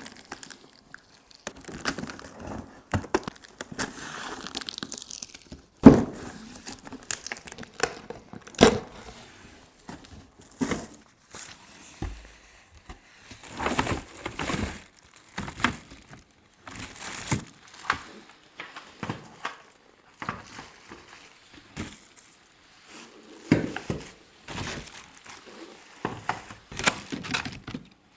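A vacuum cleaner being unboxed: cardboard and plastic packaging being handled, with irregular crinkling, rustling and tearing, and knocks as parts are moved. The loudest is a sharp knock about six seconds in.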